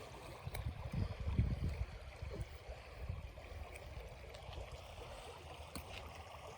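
Creek water running steadily, with a stretch of low bumping and rumbling about a second in.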